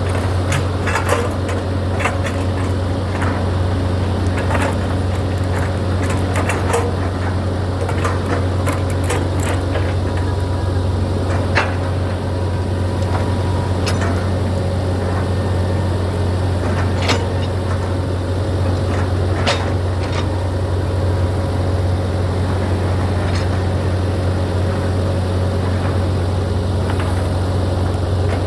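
SANY excavator's diesel engine running steadily, with scattered sharp clicks and knocks over it, more of them in the first half.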